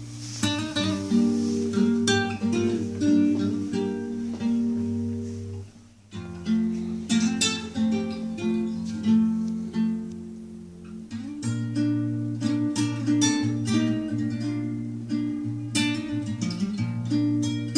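Acoustic guitar music, plucked and strummed over sustained bass notes, played through a pair of Castle floor-standing speakers and heard in the room. It briefly falls away about six seconds in, then picks up again.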